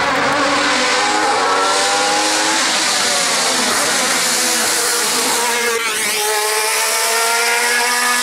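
Alfa Romeo 155 DTM/ITC race car's naturally aspirated 90-degree V6 screaming at high revs under full throttle. The pitch climbs and drops back at each upshift as the car accelerates uphill, passing close by about six seconds in and pulling away.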